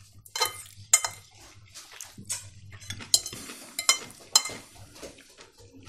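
Forks clinking and scraping on plates as people eat, with several sharp clinks of metal on dishes.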